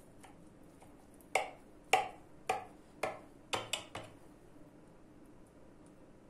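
Knife blade clicking against the bottom of a glass baking dish as it cuts down through a soft, syrup-soaked semolina cake: about seven sharp clicks, roughly two a second, starting a little over a second in and stopping about four seconds in.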